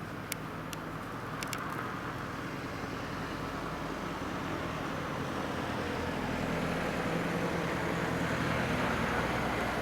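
Blizzard street noise: a steady rush of wind and road traffic that slowly grows louder, with a low engine hum in the second half and a few sharp clicks in the first two seconds.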